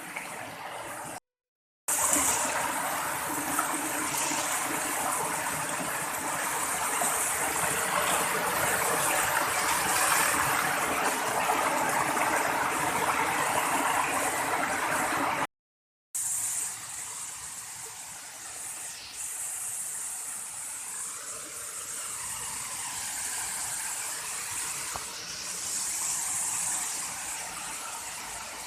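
Rushing water of a forest waterfall, a steady, even noise. It cuts out twice for under a second and is quieter after the second cut.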